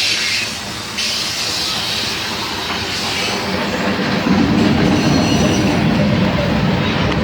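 Train passing close by: a steady rumble of wheels on the rails with a hissing noise over it, growing louder about four seconds in.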